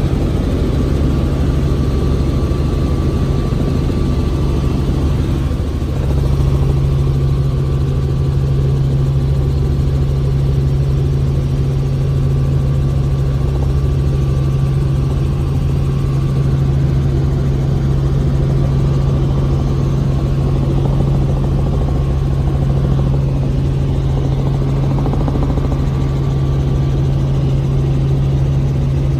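Helicopter engine and rotor noise during flight, a steady loud drone with a strong low hum that grows slightly louder about six seconds in.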